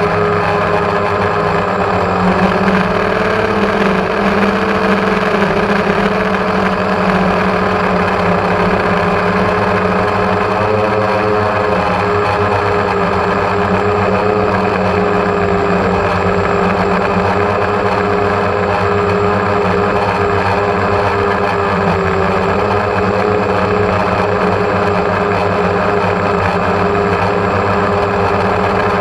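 Electric motors and propellers of a multirotor drone, heard close up from the camera mounted on it: a steady, loud whir of several pitches whose tones waver slightly about halfway through.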